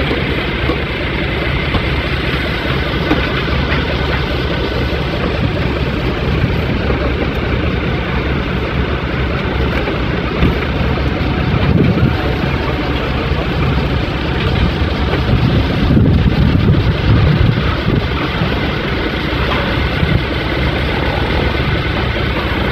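Heavy vehicle's diesel engine running steadily.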